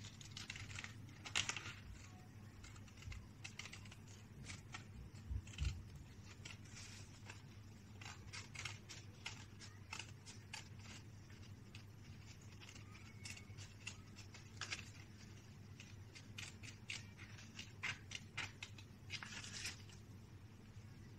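Small red-handled scissors snipping through thick drawing paper, a long run of short, irregular snips as the blades work around a curved outline.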